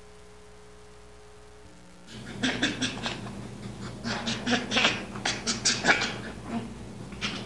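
Baby chimpanzee laughing as it is tickled: bouts of rapid, breathy panting pulses that start about two seconds in, after a low steady hum.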